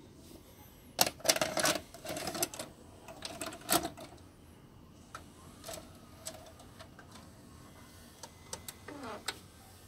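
Irregular clicks and clatter, thickest for a few seconds after the first second, then a few scattered clicks and a short falling whine near the end.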